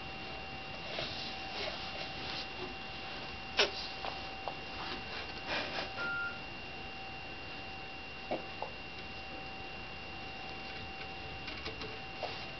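A few light knocks and taps from a baby handling the metal tube legs of a chair, the loudest about three and a half seconds in, over a steady high tone with a lower one beneath it.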